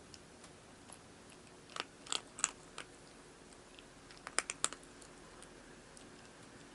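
A cat crunching dry food: two short runs of crisp crunches, one about two seconds in and one about four seconds in.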